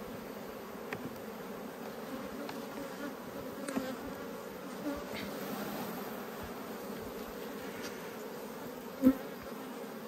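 Honeybee colony buzzing steadily in an open hive box, with a few light clicks and knocks as a frame is pried up and lifted out with a hive tool; the loudest is a sharp knock near the end.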